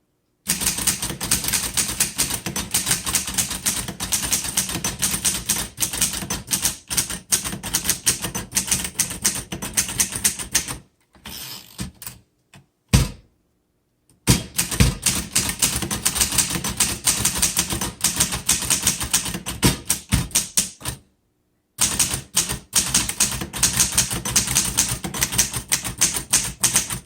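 1947 Underwood Universal portable manual typewriter being typed on: quick runs of type bars striking the platen, several clacks a second, broken by two short pauses. A single louder clack comes about thirteen seconds in.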